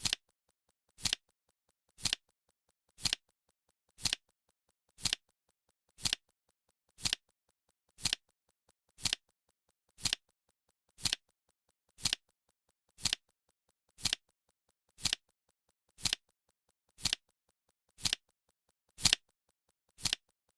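Flip clock sound effect ticking off a countdown timer: a sharp, short double click once a second, steady and evenly spaced.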